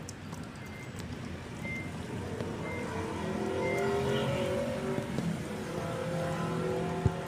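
A motor vehicle engine running nearby, its wavering hum swelling after a couple of seconds and staying up. Four short high beeps come about a second apart in the first half.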